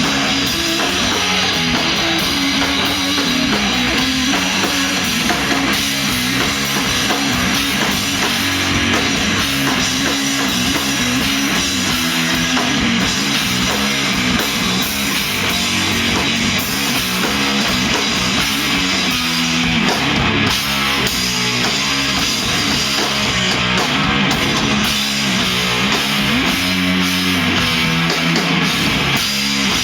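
Live rock band playing loudly and without a break: electric guitar and bass over a drum kit, the bass line moving in a repeating pattern.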